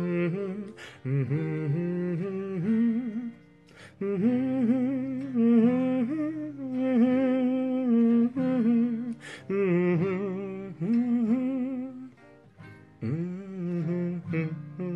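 A man humming a wordless, improvised melody with vibrato over acoustic guitar chords, in phrases with two short breaks.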